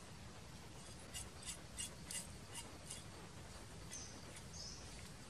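Faint forest ambience: a quick run of about seven sharp ticks about a second in, then a few short high bird chirps near the end.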